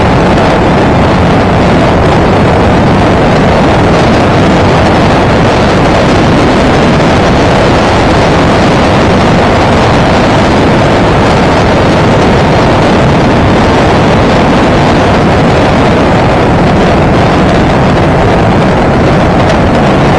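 Motorcycle underway, its engine and the rush of wind picked up by an action camera mounted on the bike, a loud, steady, unchanging noise.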